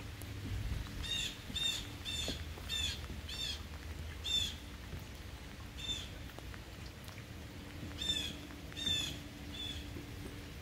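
A bird calling outdoors: a string of short, harsh calls about twice a second, a pause, then three more near the end, over a faint steady low hum.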